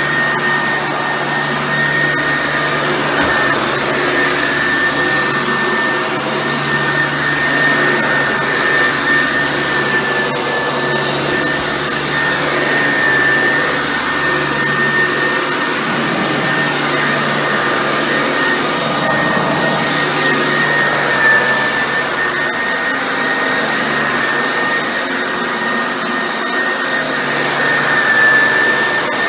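Eureka Bravo 9206 upright vacuum running steadily while being pushed over carpet, its motor giving a steady high whine whose pitch wavers slightly. The motor has just had a partial rebuild, with one of its two bearings replaced.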